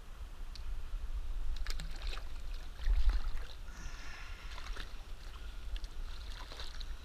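Shallow stream water splashing and sloshing around wading bare feet as a small trout is let go, over a low rumble of wind on the microphone that swells about three seconds in. A few sharp clicks come near two seconds in.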